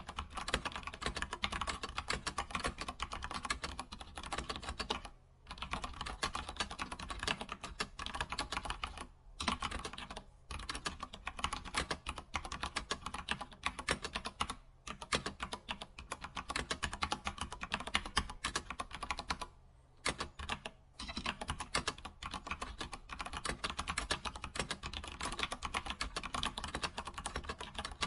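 Computer keyboard typing: a fast, continuous run of keystroke clicks, broken by a few brief pauses of under a second.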